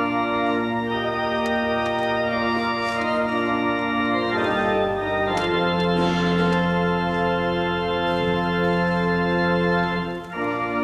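Organ playing a wedding processional in full, held chords that change a few times, with a brief break near the end before the chord returns.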